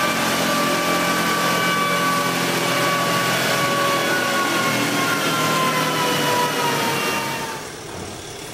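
Suzuki GSX-R sport bike running on a chassis dyno: a steady engine note whose pitch falls slowly as it winds down after a run. It fades out about three-quarters of the way in.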